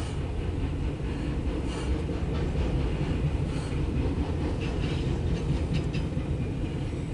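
Loaded autorack freight train rolling past: a steady low rumble with scattered faint wheel clicks.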